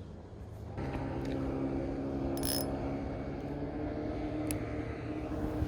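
A motor engine running steadily, starting up about a second in, with a few faint brief ticks and a short swish over it.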